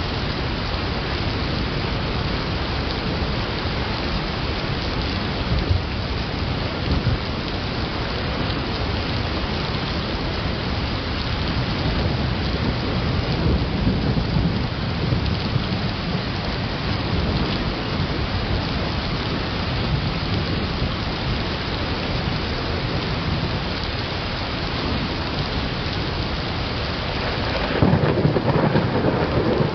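Thunderstorm: steady rain hiss with thunder rumbling underneath. A louder peal of thunder swells up near the end.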